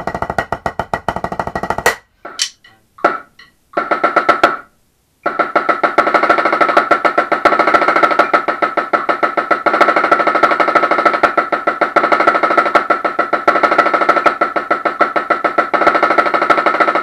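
Pearl marching snare drum with an Evans head, played in a fast, even run of quintuplet singles and diddles (a fivelet-roll exercise), with a bright ring on every stroke. This run starts about five seconds in. Before it come about two seconds of the same sticking on a practice pad, then a few scattered hits and a brief pause.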